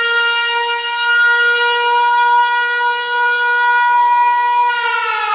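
A single loud, horn-like tone held at one steady pitch for several seconds, then sliding down in pitch near the end.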